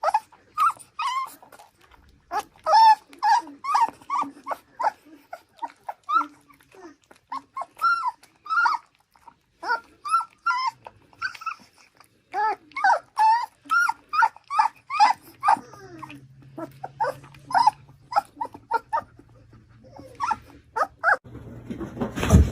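A dog giving a long run of short, high-pitched cries, two or three a second with brief pauses between runs. Near the end a rushing noise takes over.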